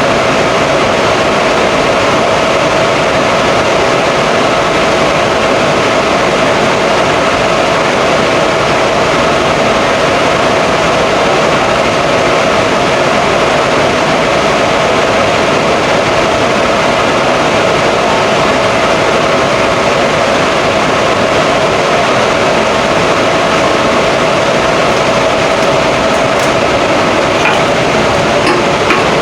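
Steady, loud machinery noise with a constant hum, unbroken and unchanging.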